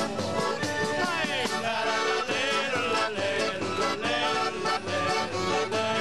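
Folk trio playing accordion, strummed acoustic guitar and tambourine, with a man singing over the band.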